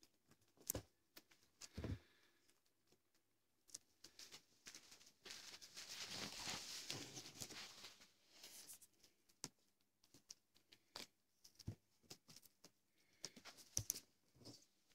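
Maine Coon cats tussling and rolling on a carpet over catnip bags: faint scattered taps and thumps of paws and bodies, with a longer stretch of rustling about five to eight seconds in.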